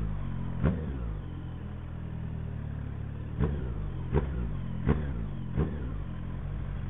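Motorcycle engine running with its exhaust muffler removed, rumbling steadily at low revs while moving slowly. About five short, sharp blips cut through it, the first under a second in and four more in the second half.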